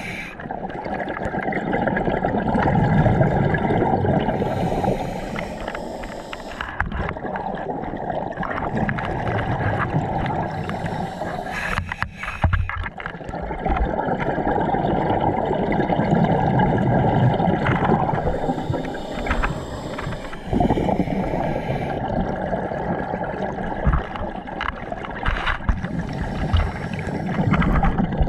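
Scuba regulator breathing heard underwater: long stretches of bubbling exhaled air alternating with a hissing inhale, over a few slow breaths, with a sharp click near the middle.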